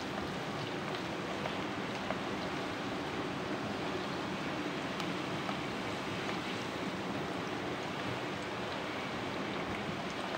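Sliced onions sizzling steadily in deep hot oil in a karahi, stirred now and then with a wooden spatula, being fried to a light golden brown.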